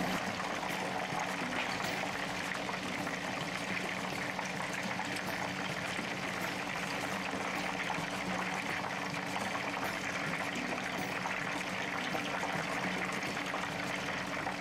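Pieces of chicken deep-frying in very hot oil in a pan, a steady sizzle and bubbling.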